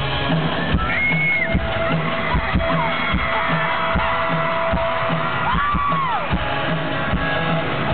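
Live rock band starting a song through the PA, electric guitars over a steady kick-drum beat. High screams from fans near the microphone come about a second in and again near six seconds.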